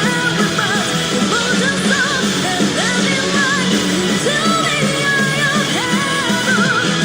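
Live speed metal from a rock band: fast drums, distorted electric guitars and bass under a high female lead vocal singing the melody.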